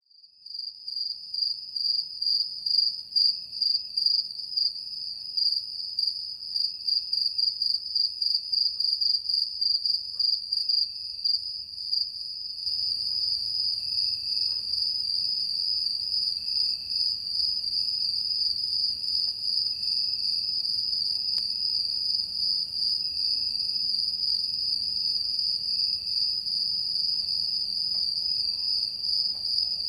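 Night-time crickets chirping in a steady, fast-pulsing high trill, with a fainter lower chirp repeating about once a second. The sound fades in at the start, and about halfway through the background hiss beneath it steps up.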